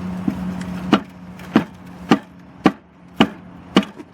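A hammer pounding a tire at the rim six times in an even rhythm, about two blows a second, trying to break the stuck bead of a blown tire loose from the wheel; the bead will not go down.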